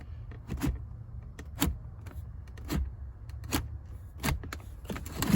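Sharp clicks and clunks, about one a second, the last the loudest: a newly bolted-in floor shifter in a 1994 Chevrolet Impala being worked back and forth through its positions.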